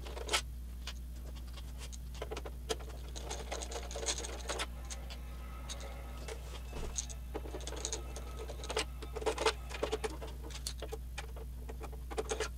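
Scattered small clicks, scrapes and light knocks of a screwdriver working screws out of a PS3 Phat's power supply, and of its plastic-cased unit being shifted about, over a faint steady low hum.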